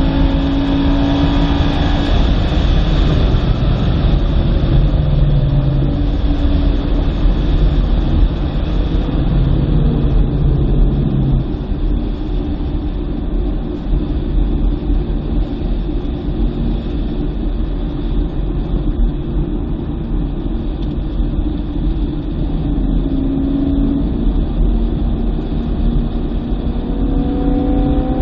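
2009 BMW M3 Convertible's V8 driven hard on a wet track, with a steady low rumble underneath. The engine note falls early on, stays lower through the middle, and climbs again near the end as the car accelerates.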